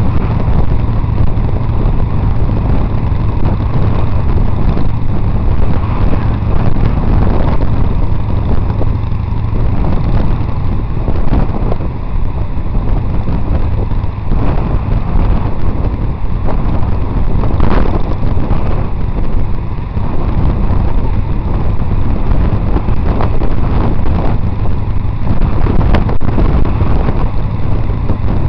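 Wind rushing over the microphone of a camera carried by a cyclist riding in a pack, a loud steady low rumble mixed with road noise. A single sharp click near the end.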